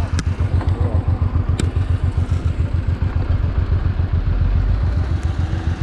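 Motorcycle engine idling with an even, rapid low pulse, and two sharp clicks, one just after the start and one about a second and a half in.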